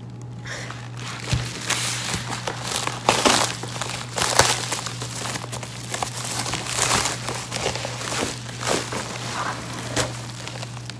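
Plastic bubble mailer handled and pulled open by hand, with irregular crinkling and rustling as a boxed tablet is slid out of it. A steady low hum runs underneath.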